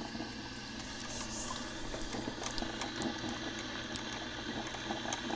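Black & Decker thermal carafe drip coffee maker brewing: a steady hiss of steam with scattered small pops and sputters as the hot water is pushed up and through.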